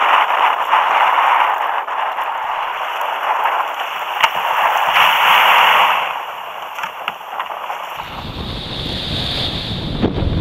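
Surf rushing and breaking around a sit-on-top kayak as it is paddled in through the waves to land, with a sharp knock about four seconds in. About eight seconds in it changes to wind buffeting the microphone over the sound of waves on the beach.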